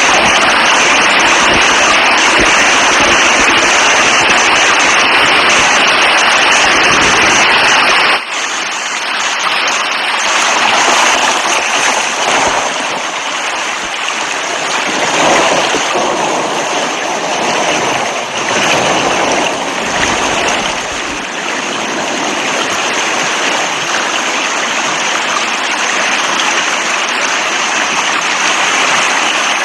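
Rain falling as a steady, dense hiss. About eight seconds in it cuts abruptly to a different recording of rain or rushing water that is lighter and more uneven.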